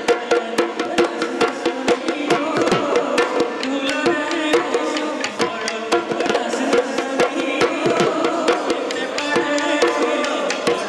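Assamese folk dance music played for a group dance, with fast, steady drum beats under a melody line.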